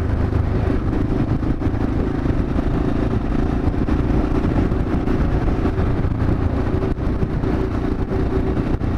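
Yamaha XT 600E's single-cylinder four-stroke engine running at a steady cruising speed, with wind and road noise over the bike.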